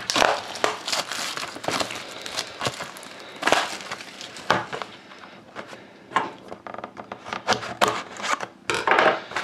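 Plastic shrink wrap crinkling and crackling as it is torn and pulled off a cardboard box of trading cards. Near the end a knife blade scrapes through the box's sealed flap.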